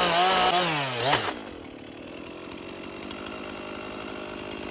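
Chainsaw in an Alaskan-style chainsaw mill running at full throttle through a log cut; about half a second in the revs fall away, and after a short blip the saw settles to a quieter, steady idle.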